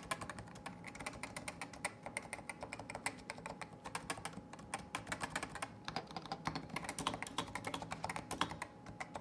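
Fast, continuous typing on a Topre Realforce RGB keyboard, its Topre electro-capacitive switches giving many quick irregular keystrokes a second.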